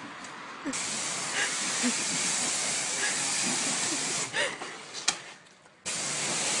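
Self-service car-wash high-pressure lance spraying water with a steady hiss. The spray cuts out at the start and again for about a second and a half after the four-second mark, with a sharp click in the second gap, then starts again abruptly.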